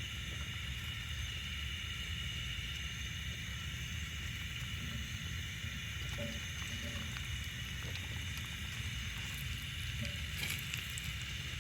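Sambussas frying in hot oil, a steady sizzle, with a few faint clicks about ten seconds in.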